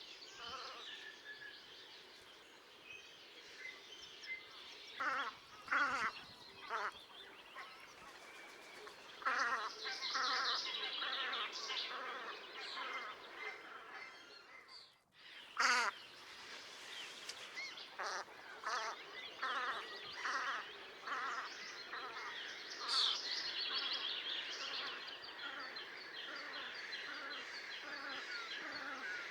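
A flock of sea ducks calling, many overlapping calls running together, with louder single calls standing out here and there and a brief gap about halfway through.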